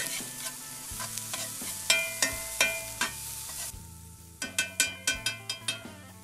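Chopped onion, Anaheim peppers and garlic sizzling in hot oil in a pan, with a utensil stirring and clinking against the pan; a quick run of about eight ringing clinks comes a little past the middle.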